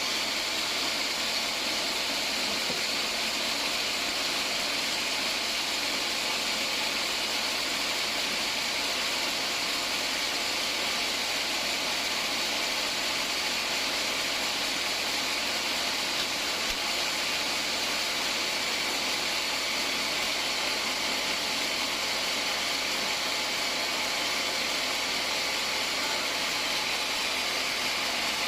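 Band sawmill running, a steady unbroken machine noise that does not change.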